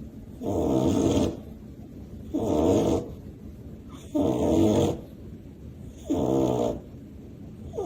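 A dog snoring in its sleep: four rasping snores about two seconds apart, each lasting under a second, with softer breathing between them.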